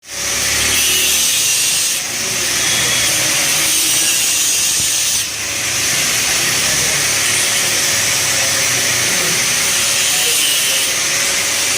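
Electric arc welding on thick metal: a loud, steady hiss that dips briefly twice, about two and five seconds in.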